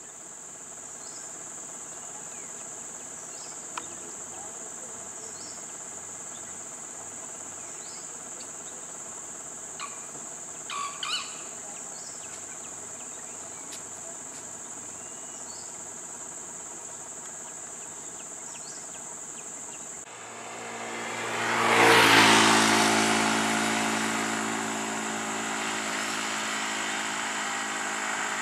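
Steady high-pitched drone of insects with a few short chirps. About two-thirds of the way through, a motorcycle engine comes up, loudest a couple of seconds later, then keeps running steadily at low speed.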